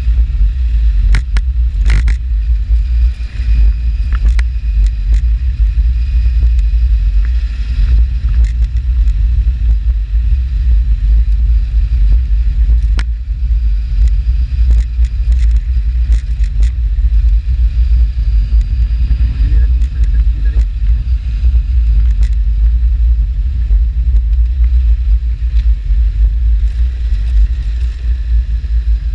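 Adventure motorcycle riding a gravel road with the engine running under a heavy, steady low rumble of wind on the on-bike microphone, broken by a few sharp knocks from bumps and stones, a pair about a second or two in and one near the middle.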